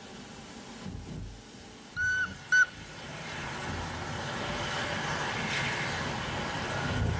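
Steam locomotive whistle on a metre-gauge YD class engine: two short blasts about two seconds in, the second briefer. Then the running noise of an approaching steam train builds steadily.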